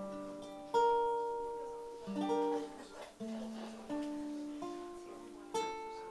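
Acoustic guitar playing a slow instrumental intro: chords plucked about once a second, each left to ring and fade before the next.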